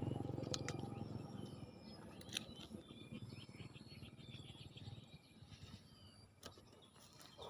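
A low pulsing rumble fades away over the first second or two. After it come faint, scattered bird chirps and a few sharp clicks.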